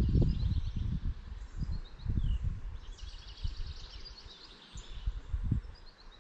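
A songbird singing fast, repeated trills with falling notes, several phrases in a row, over an uneven low rumble that is loudest in the first second.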